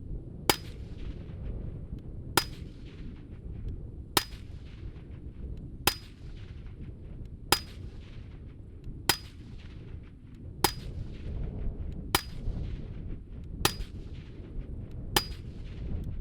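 Ten suppressed 5.56 rifle shots from a Mk 12 fitted with an Otter Creek Labs OCM5 suppressor, fired semi-automatically at an even pace of about one every one and a half seconds. Each shot is a sharp crack with a short high-pitched ring, the suppressor's characteristic twang, over wind rumbling on the microphone.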